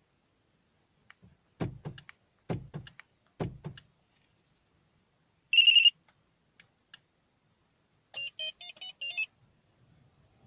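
StarLine A93 car alarm key fob: three dull clicks, then one loud beep, and about two and a half seconds later a quick run of short beeping notes from the fob's speaker, the fob's signals for a remote engine start command.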